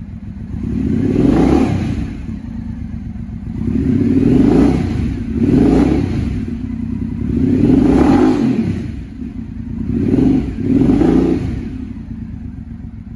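Triumph Speedmaster 865's parallel-twin engine idling and being revved, with about six blips of the throttle that rise and fall back to idle.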